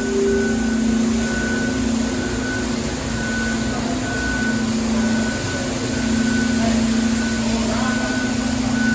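Vehicle back-up alarm beeping about once a second over the steady drone of its running engine, the sound of a machine reversing on the pour site.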